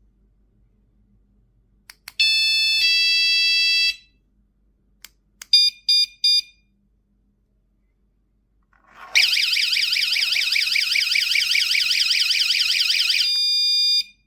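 Wireless door alarm sounding its modes: after a couple of clicks it gives a two-tone ding-dong chime, then three short beeps, then a fast warbling siren for about four seconds that ends on a brief steady tone.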